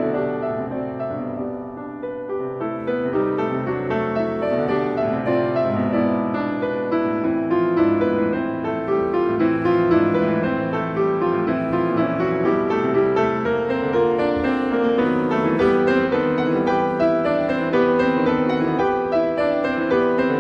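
Background piano music, gentle and flowing, with a steady run of notes.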